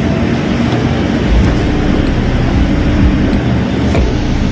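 Loud, steady engine rumble with a constant low hum inside a ferry's enclosed car deck.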